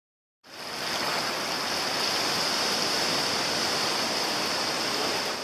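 Steady rushing noise of moving water, even and without a rhythm. It cuts in abruptly about half a second in and stops just as abruptly near the end.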